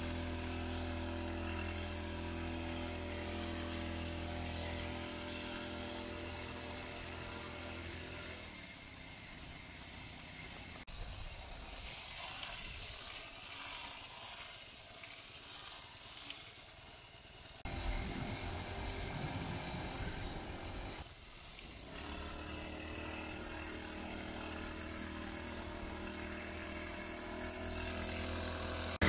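Small brush-cutter engine mounted on a bicycle, running at a steady speed while the bike is ridden. Its drone drops away for a stretch in the middle, leaving mostly wind and road rush, then comes back steady for the last several seconds.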